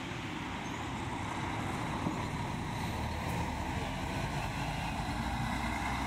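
Marcopolo G7 diesel coach running steadily as it pulls past at low speed and drives away, engine rumble mixed with road noise.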